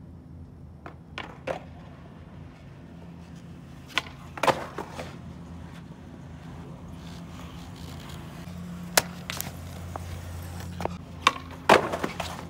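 Skateboard on concrete: wheels rolling and a scattering of sharp clacks from the board. The loudest cluster of clacks comes near the end, as the board pops off a small set of stairs.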